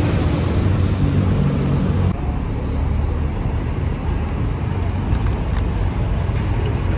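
Double-decker tour bus on the move through city traffic, heard from its open upper deck: a steady low engine sound with road and traffic noise.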